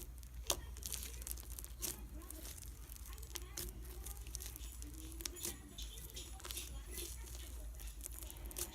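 Hands kneading and poking slime, making irregular sticky clicks and pops, over a steady low background hum.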